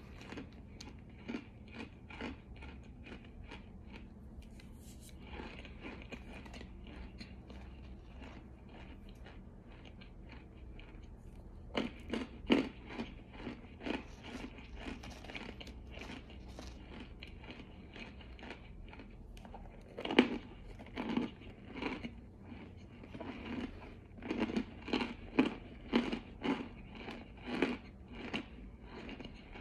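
Someone biting and chewing something crunchy close to the microphone: soft crackly chews at first, then runs of loud crunchy bites about twelve seconds in, about twenty seconds in, and again near the end.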